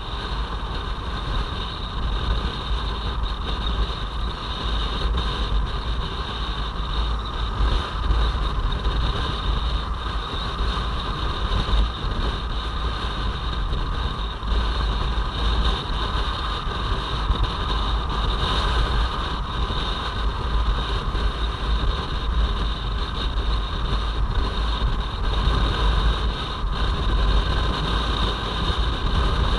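Wind buffeting a motorcycle-mounted camera's microphone at highway speed, over the steady drone of a Kawasaki Versys-X 250's engine cruising. The sound stays even throughout.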